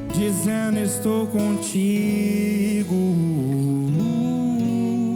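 Live band playing a slow gospel worship song, between sung lines: a held chord with a single lead melody bending up and down in pitch over it.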